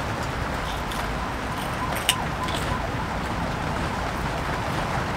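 Steady rain falling on a polycotton (TC) tent canopy, heard from inside the tent, with one light click about two seconds in.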